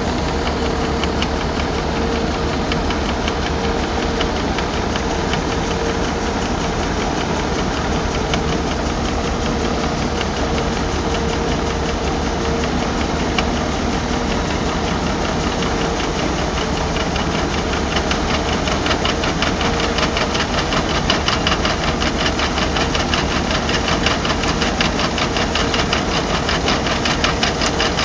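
Combine harvester running while its unloading auger pours barley into a trailer: a steady machine noise with a constant hum and a fast, even rattling rhythm that grows stronger in the second half.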